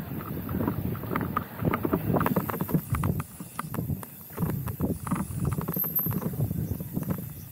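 Mountain bike clattering down a rough dirt singletrack: a continuous run of irregular knocks and rattles from the frame, chain and tyres jolting over the bumps.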